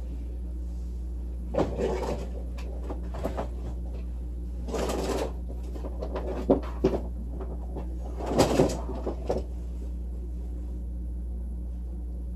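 Handling noises: a few short bursts of rustling and knocking, the last and loudest about two thirds of the way in, over a steady low hum.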